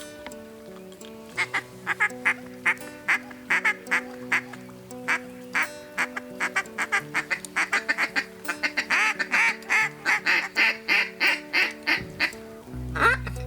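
A long run of short, sharp duck quacks that comes faster and denser toward the end, with background music underneath.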